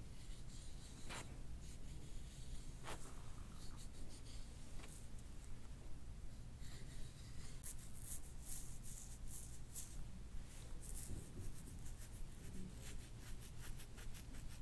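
Quick, scratchy rubbing and rustling strokes of hands working over a patient during chiropractic soft-tissue work, thickest around the middle and again near the end, over a steady low hum.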